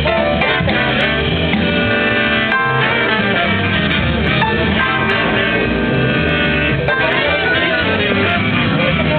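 Big band playing live, its saxophone and brass sections sounding long held chords over a bass line.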